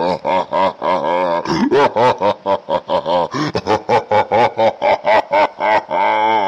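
A cartoon Batman voice laughing in a long run of rapid 'ha ha ha' pulses, about five a second, which turns into a drawn-out, wavering groan near the end.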